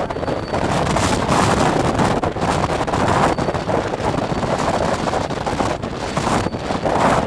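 Strong wind buffeting the microphone, a loud rushing roar that swells and eases in gusts.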